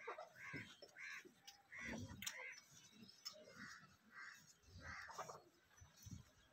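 Faint bird calls: short notes repeated several times, in small groups.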